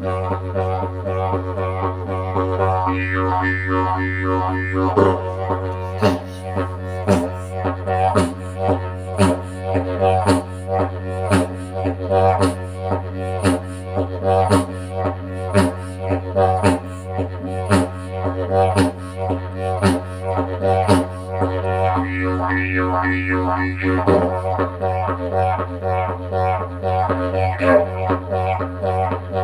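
Didgeridoo played as a low, unbroken drone with a steady fundamental, held without a pause for breath, which is the sign of circular breathing. Through the middle the player pushes rhythmic accents about twice a second, and near the start and again near the end the overtones shift as the mouth shape changes.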